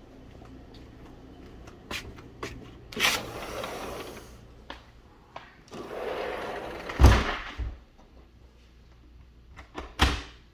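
A door sliding open with a rubbing rumble, then sliding shut and closing with a hard bang about seven seconds in; a few lighter knocks and clicks around it, and another knock near the end.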